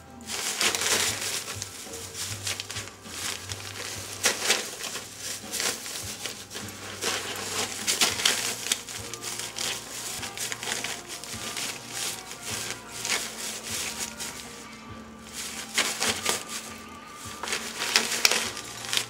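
Plastic treat bag crinkling and rustling in irregular bursts as a husky noses, bites and paws at it to tear it open.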